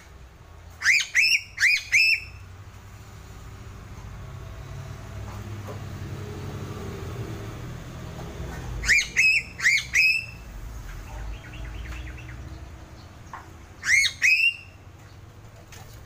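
Piping crow (Sulawesi crow) calling in short, upward-sliding, piping notes: a run of four about a second in, four more about halfway through, and two near the end, over a low background rumble.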